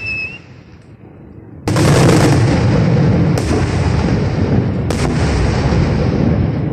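Aerial firework shells bursting. A high whistle dies away at the start, then after a short lull come three sharp booms about a second and a half apart, each followed by long, rumbling reverberation.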